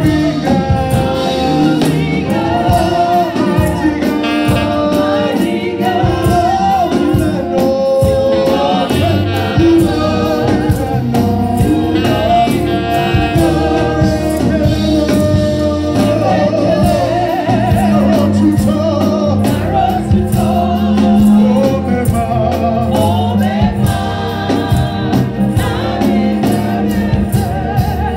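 Live gospel praise-and-worship music: a lead singer and a choir of backing singers singing over keyboard and percussion with a steady beat. Near the middle, a deep note is held for several seconds under the voices.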